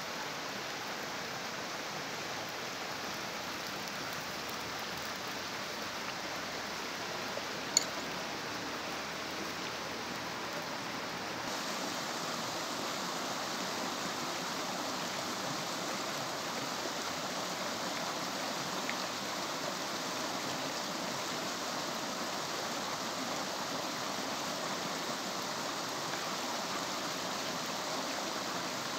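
Steady rushing of flowing water, with one sharp click about eight seconds in; the rush turns brighter and a little louder from about a third of the way through.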